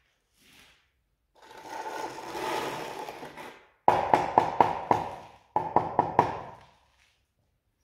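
Steel notched trowel scraping through tile adhesive on a concrete floor. It is then struck sharply in two quick runs of taps, about six and then about four, with the steel blade ringing on each tap.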